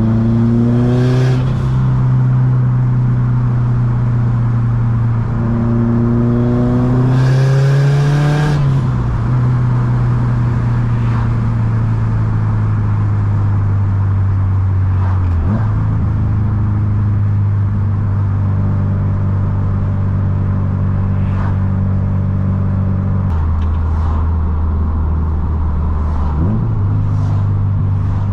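Subaru STI's turbocharged flat-four engine under driving: the revs climb twice, the second climb followed by a brief hiss, then it runs at steady revs that step down or up a few times.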